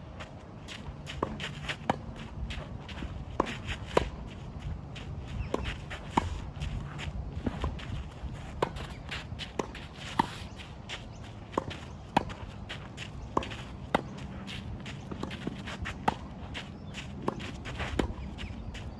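Tennis rally on a clay court: a string of sharp pops from rackets striking the ball and the ball bouncing, one every half second to a second, with footsteps and shuffling on the clay between shots.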